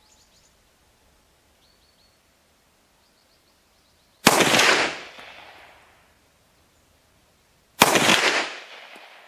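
Two shots from a Tokarev TT-33 pistol in 7.62x25mm, about three and a half seconds apart, each followed by a rolling echo lasting about a second.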